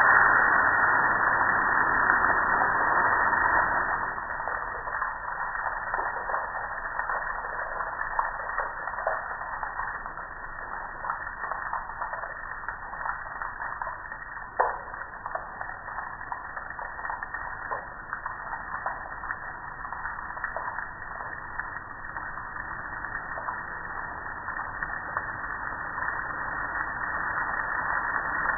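Garden hose spray nozzle hissing as water hits a gas grill, stopping about four seconds in. After that, water drips off the grill with many small ticks and one sharper click about halfway, growing louder again near the end.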